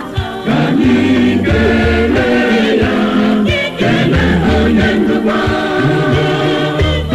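Catholic church choir singing an Igbo hymn in parts, over a bass line and a steady beat.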